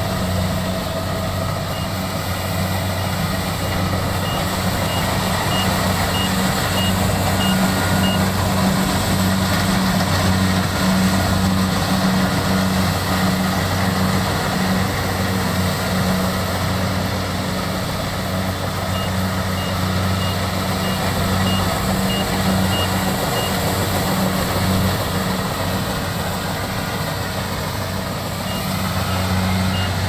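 Kubota rice combine harvester running steadily under load while cutting standing rice, a continuous engine and threshing hum. A high beep repeats quickly in three runs of several seconds each.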